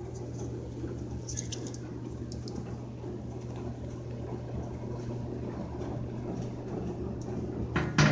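Kenmore/Whirlpool top-load HE washer running at the start of its cycle: a steady low electrical hum with a faint wash of noise, and one sharp click near the end.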